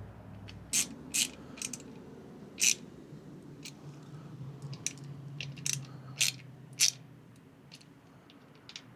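Sharp metallic clicks and clinks of a hand tool working the Torx screws of a motorcycle timing cover, about ten of them at uneven intervals, with a faint low hum through the middle.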